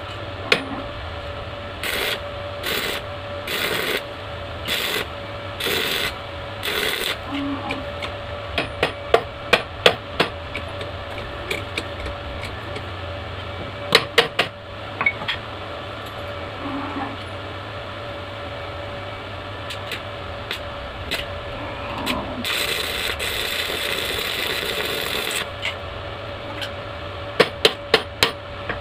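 Stick arc welding on steel: a run of short crackling bursts as the electrode is struck and welds are laid in the first several seconds, then sharp metallic taps of a hammer knocking slag off the welds. A longer crackling weld bead follows about two-thirds of the way through, with more taps near the end, over a steady hum.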